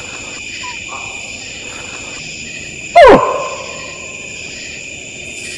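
Steady trilling of night insects, with a faint short animal call repeated twice at an even spacing as a loop. About three seconds in comes a loud, sharp human-made call that falls steeply in pitch and dies away within a second.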